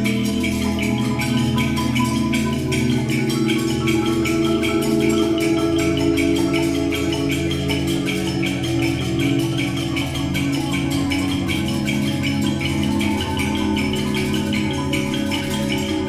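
Percussion ensemble playing a dense, unbroken stream of quick mallet notes on marimbas and other keyboard percussion, with sustained low pitched tones underneath. The players are improvising rhythmic phrases over a common pulse.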